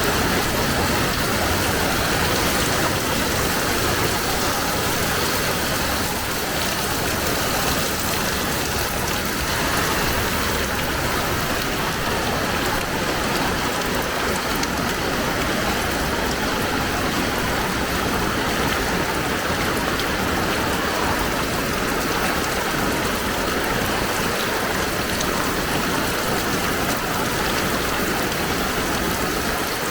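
Heavy rain falling steadily, a dense even hiss of drops hitting the surfaces all around.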